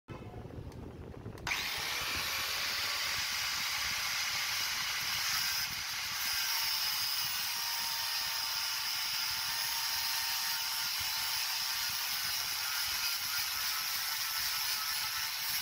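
Angle grinder's cutting disc grinding through the steel of a hole-saw bit jammed in a hammer drill's chuck, so the bit can be removed. A steady, high grinding hiss that starts abruptly about a second and a half in, after a quieter moment as the disc is set against the metal.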